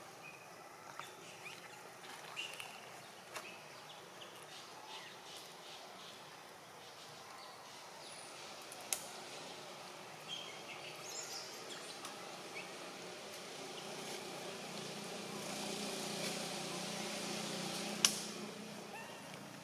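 Faint outdoor ambience with scattered small clicks and rustles and a few brief high chirps. About two-thirds of the way through a low steady hum rises and then falls away just after a sharp click near the end.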